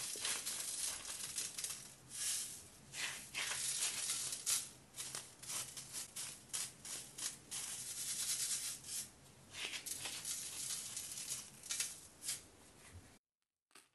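Small lumps of purple-dyed baking soda rattling and scraping in a fine metal mesh sieve shaken by hand: a dense run of gritty crackles with short pauses. It cuts off suddenly near the end.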